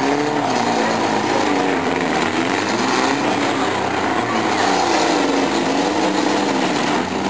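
Demolition derby cars' engines revving, their pitch rising and falling unevenly, over a steady noise.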